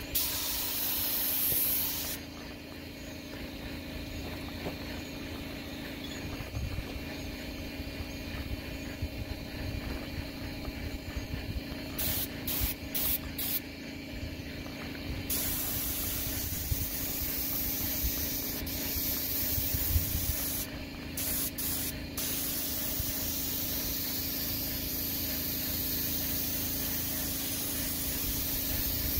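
Paint spray gun hissing as it sprays paint, in bursts: one short spray at the start, several quick trigger pulls about halfway through, then near-continuous spraying through the second half, broken briefly a few times. A steady low hum runs underneath.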